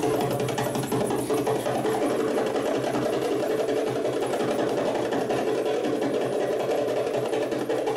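Live hand drums, a goblet drum and a frame drum, playing a fast, continuous roll of dense strokes, with a steady held tone beneath.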